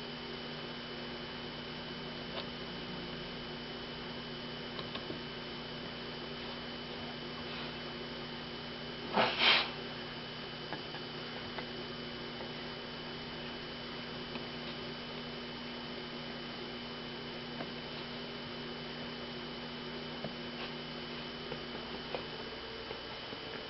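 Steady electrical hum with a few faint clicks, and one short, loud noisy burst in two quick pulses about nine seconds in.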